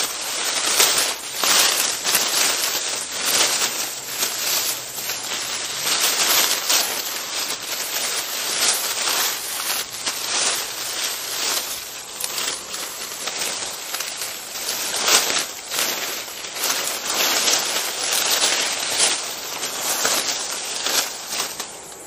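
Footsteps walking over a forest floor at a steady pace, a little more than one step a second, over continuous rustling.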